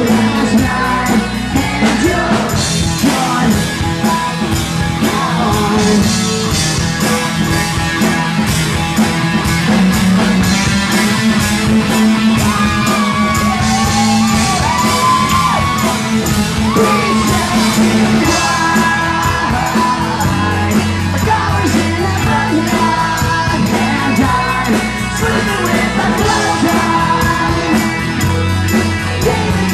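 Live rock band playing loud: drums, guitars and bass, with a singer's voice coming in at times.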